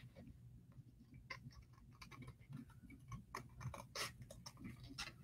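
Scissors cutting thin cereal-box cardboard: faint, irregular snips and clicks.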